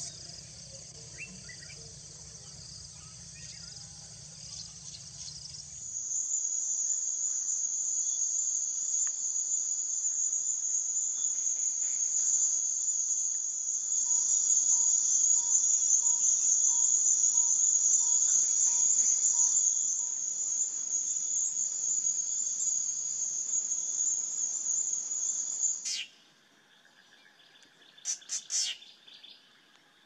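Dense insect chorus, a steady high-pitched trill. Partway through comes a faint series of about nine evenly spaced low whistled notes from a Sokoke Scops-owl. The chorus cuts off abruptly near the end, leaving a few short bird calls.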